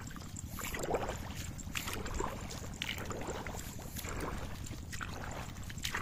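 Footsteps wading through a flooded, muddy rice paddy: water sloshing, with a few light clicks over a steady low rumble.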